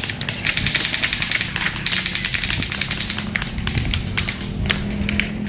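Airsoft guns firing during a game: quick runs of sharp plastic clicks, several guns overlapping, irregular and fast like typing.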